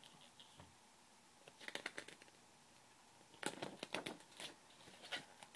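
A page of a picture book being turned: faint paper rustles and flicks, a short spell about a second and a half in, then a longer one from about three and a half seconds.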